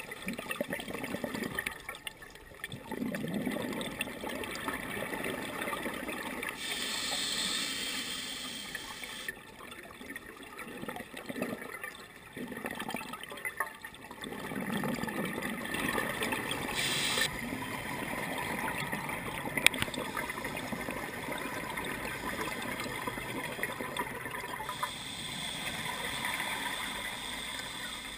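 Scuba diver breathing through a regulator underwater: gurgling bursts of exhaled bubbles alternating with stretches of hissing inhalation, a few seconds apart.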